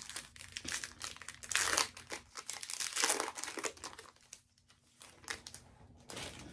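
Trading-card pack wrapper crinkling and rustling as it is handled, in irregular bursts, loudest about a second and a half in and again about three seconds in.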